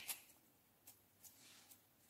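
Near silence, with a brief crackle at the start and a few faint soft ticks as clear slime is squeezed out of a small plastic cup.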